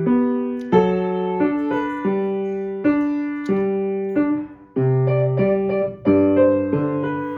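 Background piano music: a slow melody of held notes, with chords changing about every half second to second.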